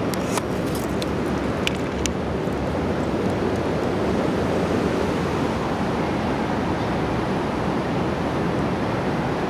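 Steady rushing outdoor background noise, like wind on the microphone or distant traffic. A few light clicks and rattles come in the first two seconds as a hand handles the cat's leash and carrier.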